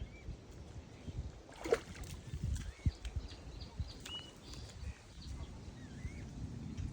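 Outdoor ambience: a scattering of short, high bird chirps over a low rumble, with a few knocks.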